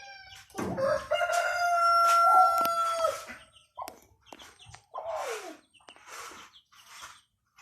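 A six-month-old gamefowl stag, a young rooster, crowing once in a long held crow lasting about two and a half seconds, followed by a few short calls, one falling in pitch.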